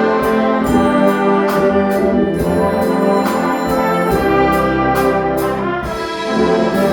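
Concert band playing, with brass prominent in sustained chords over a steady beat of cymbal or percussion strokes; the sound dips briefly near the end, then comes back in full.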